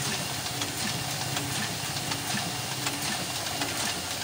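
A.B. Dick 385 tabletop offset press running: a steady mechanical whir and hiss with a regular run of light clicks from its moving parts.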